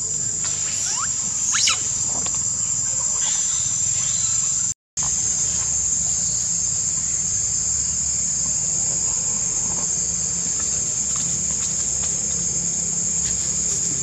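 Steady high-pitched insect drone, with a few short squeals from young macaques playing about one to two seconds in. The sound cuts out for a moment about five seconds in.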